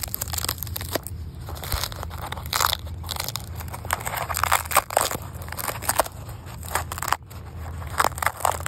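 Dry, brittle skin of a ripe loofah gourd crackling and crunching as it is peeled off the fibrous sponge by hand, in irregular crackles.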